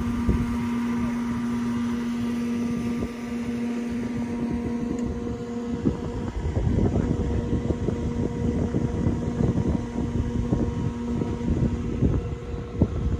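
Marina fuel dispenser's electric pump humming steadily as it fills the boat with gas. Wind gusts buffet the microphone from about six seconds in.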